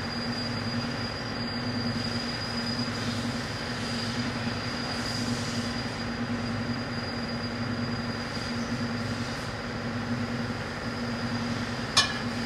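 Steady mechanical hum with a constant high-pitched whine over it, and a single sharp clack near the end.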